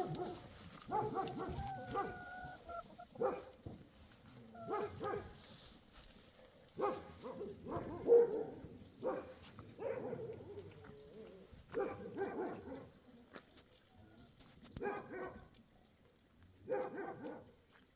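Dog barking repeatedly, short single barks spaced a second or two apart.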